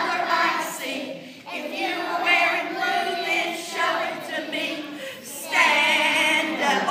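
A group of young children singing together without accompaniment, in short phrases, getting louder about two-thirds of the way through.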